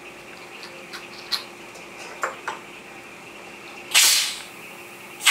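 Semi-automatic pneumatic perfume bottle crimper: a few light clicks, then a loud burst of compressed air hissing for about half a second about four seconds in as a crimping stroke fires. A second hiss starts right at the end.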